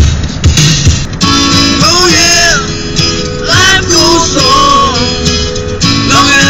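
A pop-rock song playing loud, with strummed acoustic guitar and a singing voice.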